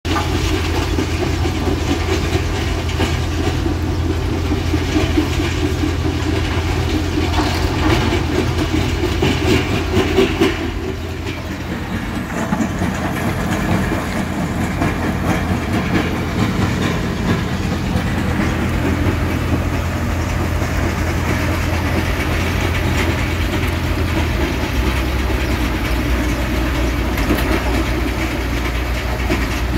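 Heavy machinery running steadily: a Volvo EC380DL excavator's diesel engine and a tracked mobile rock crusher working together, with a rattling, crunching din as broken stone is dug and fed through the crusher. The low engine drone drops in pitch near the end.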